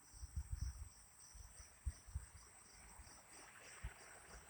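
Insects chirping steadily in a high, pulsing trill, about two pulses a second, with scattered low thumps on the microphone.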